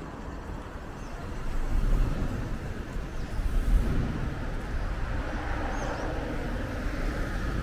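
Street traffic: a passing vehicle's low rumble swells about two seconds in and peaks again near four seconds, then settles into a steady traffic hum.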